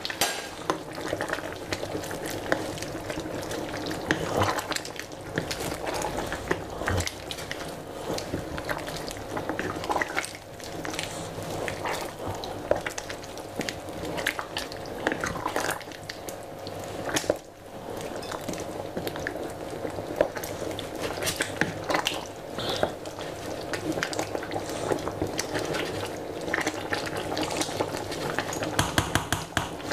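A stainless-steel pot of chicken curry with potatoes bubbling on the stove, stirred with a wooden spoon that knocks and scrapes against the pot in many small clicks.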